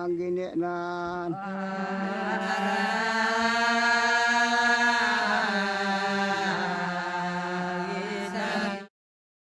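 Cordillera folk chant: voices sing long held notes over a steady low pitch, then cut off abruptly near the end.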